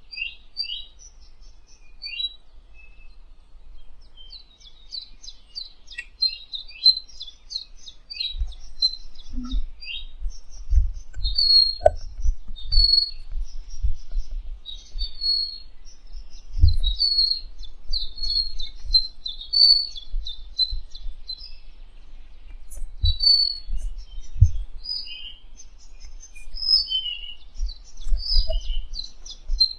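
Songbirds singing: a continuous run of high chirps, rapid trills and short whistled phrases. From about a quarter of the way in, irregular low thumps come in under the song.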